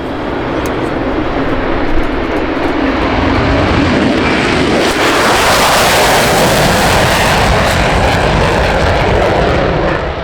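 Airplane engine noise as an aircraft passes close by, growing louder to a peak about halfway through and easing slightly near the end.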